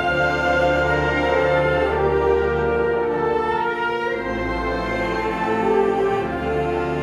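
Concert band playing long held chords in woodwinds and brass over a low bass line of tuba and double basses, the bass moving to a new note about four seconds in and again about six seconds in.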